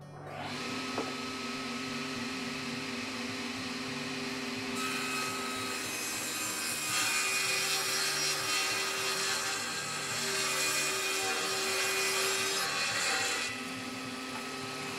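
Table saw running steadily, then ripping a birch board along its edge to straighten it from about five seconds in. The cut adds a louder, harsher hiss over the motor's hum. A second or so before the end, the saw falls back to running free.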